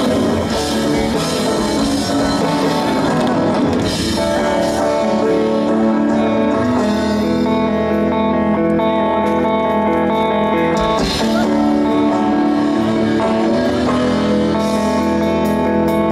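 Heavy metal band playing live: electric guitars over a drum kit. Long held notes come in about four seconds in, and the notes change twice after that.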